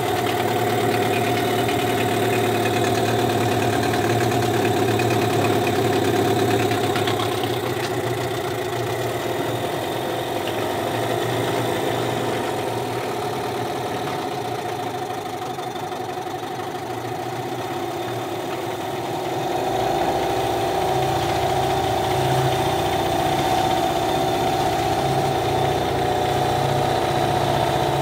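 A Hangkai 15 two-stroke twin-cylinder outboard motor running steadily in a test tank, freshly rebuilt with bored cylinders and new pistons and not yet run in. About two-thirds of the way through, its speed picks up slightly and it gets a little louder.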